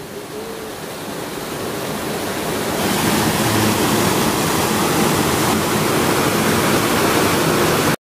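Small waterfall splashing into a pool: a steady rush of falling water that grows louder and brighter about three seconds in.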